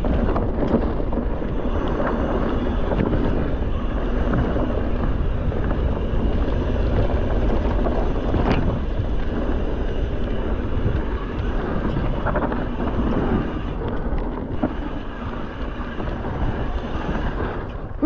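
Mountain bike riding down a dry dirt singletrack: wind rushing over the camera's microphone, with the tyres running over dirt and the bike rattling over small bumps in steady scattered knocks.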